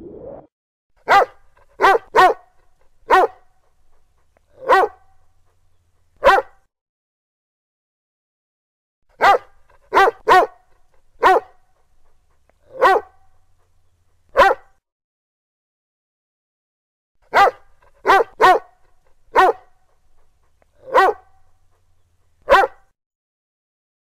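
Rottweiler barking: three runs of six short, single barks, with a quick double bark early in each run, and a gap of about three seconds between runs. The same run of barks repeats identically each time.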